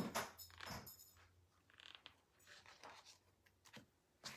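Faint handling sounds of a sheet of heat-transfer vinyl being laid onto a sticky cutting mat: light rustling and scraping with a few soft clicks and taps.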